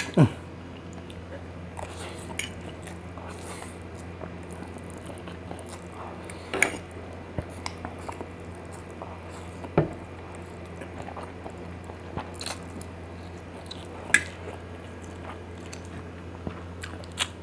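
A person eating spicy instant noodles: chewing and slurping, with several short sharp sounds scattered through.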